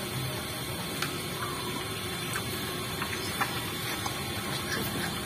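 A herd of pigs eating feed off a concrete floor: a steady mess of chewing and slurping, with a few short clicks scattered through it.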